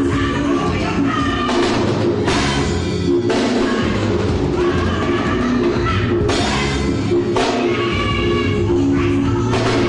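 Gospel choir singing a lively praise song into microphones, backed by a live band with a drum kit.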